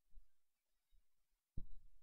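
Quiet room tone with a few faint low bumps and one short, soft thump about one and a half seconds in.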